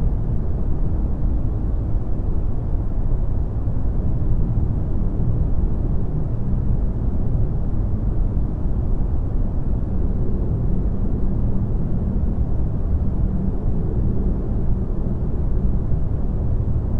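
A steady, deep rumbling noise with no distinct events in it.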